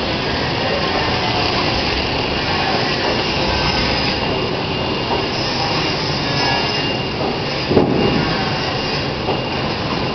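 Paper fruit-bag making machine running steadily: a dense, continuous mechanical clatter and hum from its rollers and drive. A single louder knock comes about eight seconds in.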